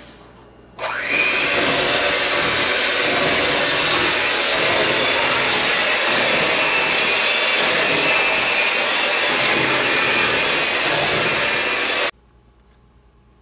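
Electric hand mixer starting up about a second in and running steadily, its beaters whipping butter, flour and sugar into shortbread dough; it cuts off suddenly near the end.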